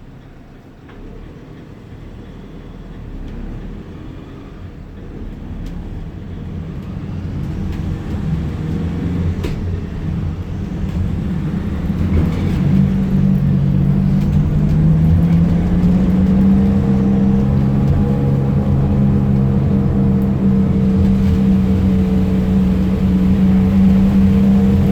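Fiat Ducato minibus's turbo-diesel engine getting steadily louder as it gathers speed, then settling about halfway into a steady drone with a few held tones over it: the strange turbo noise of a failing turbocharger.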